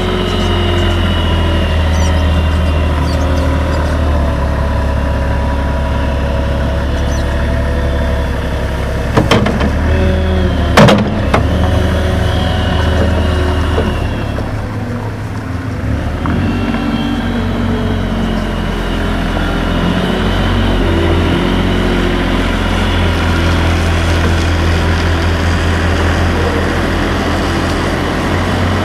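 The diesel engine of a JCB 403 compact articulated wheel loader runs and revs as the machine drives and works its bucket. A few sharp knocks come about ten seconds in, and the engine note drops briefly around fifteen seconds.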